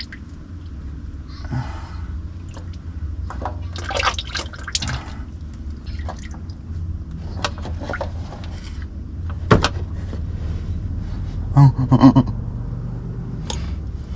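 Liquid pouring and dripping, likely engine oil draining into a drain pan, with scattered clicks and metal knocks; a cluster of louder knocks comes near the end.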